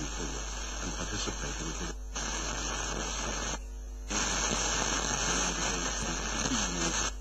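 Sony ST-SB920 FM tuner scanning the band: hissy static of weak, noisy reception, with faint fragments of a distant station's audio under it, over a steady mains hum. The sound cuts out briefly twice, the second time for about half a second, as the tuner steps to the next frequency.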